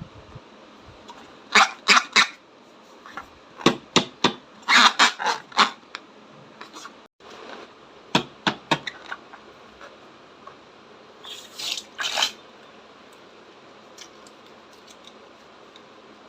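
Slime being squished and kneaded by hand: about five short bursts of quick, sharp, wet clicks and pops, over a faint steady hiss.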